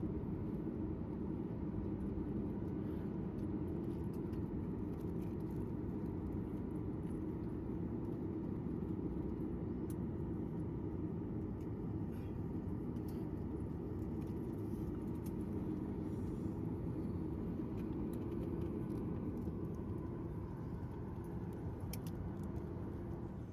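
Steady cabin drone inside a Boeing 737 MAX 8 airliner: deep engine and airflow noise with a faint hum, and occasional light rattles from the cabin fittings.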